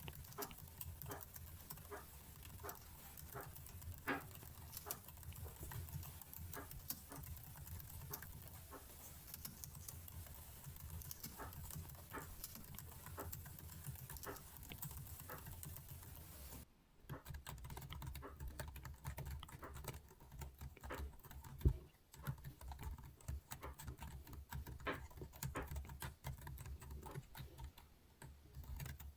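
Computer keyboard keys clicking in irregular, scattered taps, with a brief full break a little past halfway and one sharper click near the end.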